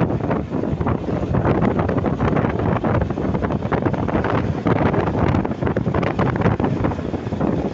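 Wind buffeting the microphone over the rumble of a moving vehicle, gusting unevenly throughout; no horn is sounding.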